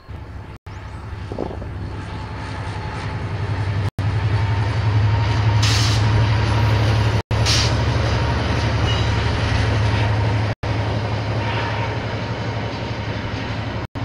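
A diesel-hauled KiwiRail train passing close by: a steady low locomotive engine drone that builds to its loudest midway and eases slightly near the end, with a faint steady high squeal over it. The recording cuts out for an instant about every three seconds.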